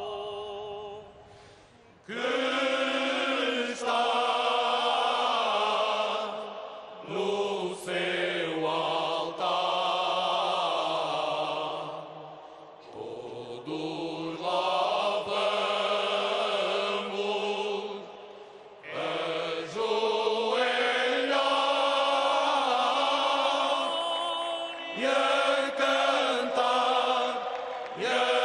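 Male choir singing Cante Alentejano: slow, many-voiced phrases with long held notes, broken by short breaks between phrases.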